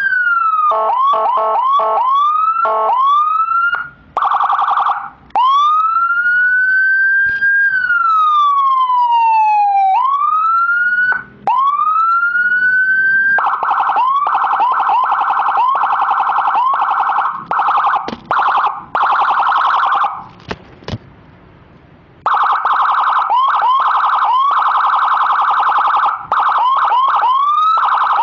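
Whelen EPL electronic siren module sounding through a 200-watt slim siren speaker, switched through several tones: quick rising chirps, a short buzzing horn blast, a slow rising and falling wail, then a fast warble. The warble breaks off briefly about twenty seconds in and starts again.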